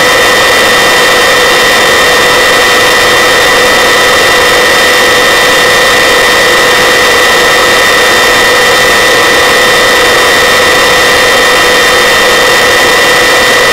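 Search-and-rescue helicopter's turbine engine and rotor running steadily, heard loud from inside the cabin: an even rushing noise with a steady high whine on top.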